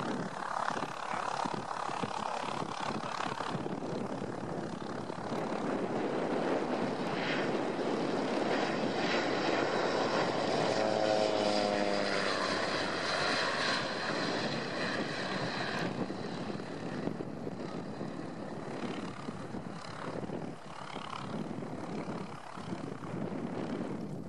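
Antonov An-2 biplane's nine-cylinder radial engine and propeller on a low pass. The drone grows louder as the plane approaches and is loudest about halfway through, where its pitch drops as it goes by. It then fades as the plane flies away.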